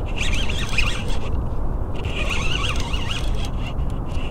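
Fishing reel being cranked to bring in a hooked fish. It gives a squeaky, chattering whir in two spells of about a second each, with a short pause between.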